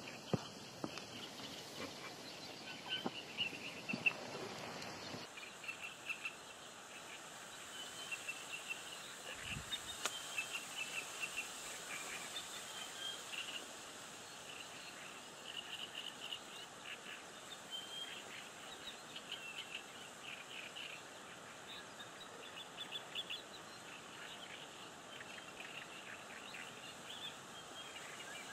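Small birds chirping in short repeated phrases over a steady open-air hiss. In the first few seconds there are a few clicks and knocks as a fishing rod is handled and set on its rest.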